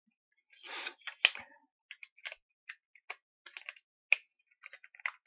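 Plastic parts of a wind-up torch being handled and fitted together: a short scrape, then a string of irregular sharp clicks and taps as the casing goes back on, with a sharp click near the end.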